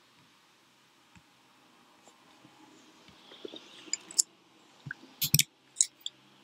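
Scattered clicks of a computer mouse and keyboard over quiet room tone, a single click about a second in and a quick run of clicks from about three and a half to six seconds in.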